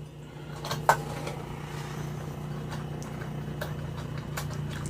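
Helicopter droning steadily, a low engine hum that grows slightly louder, with a few light clicks of small metal parts being handled.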